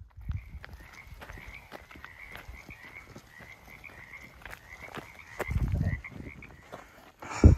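Frogs croaking in a steady, rapidly pulsing chorus, with footsteps on a dirt trail. A brief loud thump comes near the end.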